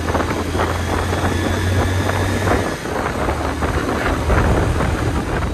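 Bajaj Pulsar 150 single-cylinder motorcycle engine running while riding, with wind buffeting the microphone.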